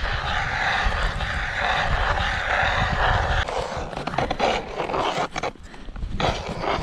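Wind buffeting the microphone with a steady low rumble and hiss. About three and a half seconds in it gives way to irregular crunching of boots in crusted snow.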